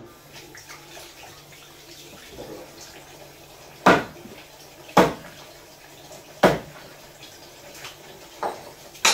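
A large kitchen knife chopping through a fish onto a wooden chopping board: three heavy chops a second or so apart, then two lighter knocks near the end. Faint water splashing at the sink underneath.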